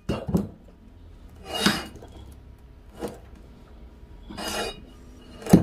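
Large glazed ceramic flowerpot being tipped and handled on a wooden tabletop: a few short scrapes and rubs and a light click, then a sharp knock with a thud near the end as it is set back down.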